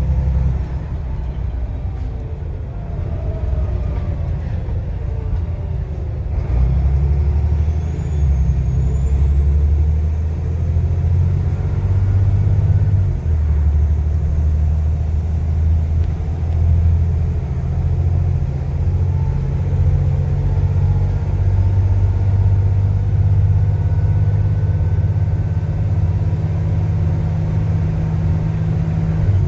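Volvo B7TL bus's turbocharged six-cylinder diesel running under load with a heavy low drone and a high turbo whistle. The whistle comes in about eight seconds in, rises, dips briefly about halfway, then holds high and climbs slowly before dropping off at the end.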